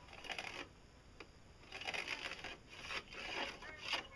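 Pencil scraping along a fiberglass hull against a spirit level in several short strokes, marking a cut line.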